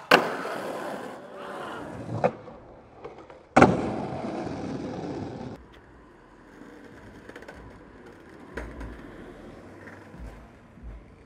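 Skateboard hitting the ground hard with a sharp slap, its wheels rolling on asphalt; a smaller knock follows about two seconds in. A second loud slap comes about three and a half seconds in, with wheel rolling running on for about two seconds before it fades to a few faint knocks.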